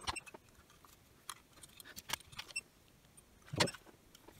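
Small clicks and taps of a circuit board and parts being handled on a bench, with one louder knock about three and a half seconds in.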